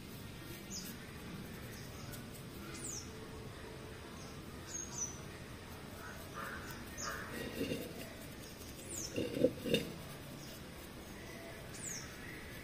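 Birds calling outdoors: a high, quickly falling chirp repeated about every two seconds, with a few louder, lower calls in the middle.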